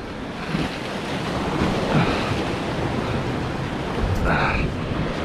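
Surf washing and breaking against the boulders of a rock jetty, with wind buffeting the microphone. A brief higher sound stands out about four seconds in.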